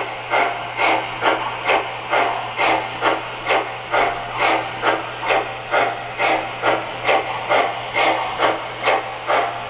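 Sound decoder (MTH Proto-Sound 3.0) in an HO-scale PRR 2-8-2 Mikado steam locomotive model playing steam exhaust chuffs through its onboard speaker as the engine runs. The chuffs come in an even beat of a little over two a second, over a faint steady hum.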